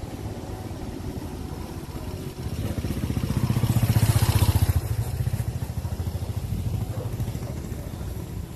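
A small motorcycle riding past close by at low speed, its engine running steadily. The engine grows louder for a couple of seconds, is loudest about four seconds in, then fades away.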